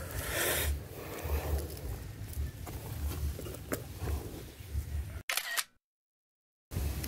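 Handling noise and low wind rumble on a body-worn camera's microphone, with rustling and a few light clicks. The sound breaks off into dead silence about five and a half seconds in, then comes back just before the end.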